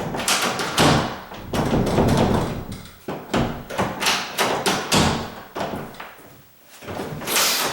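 Bathroom door being pushed shut, its latch knocking and scraping against the strike plate in a series of irregular thuds and clicks: the latch still does not depress all the way to seat in the plate.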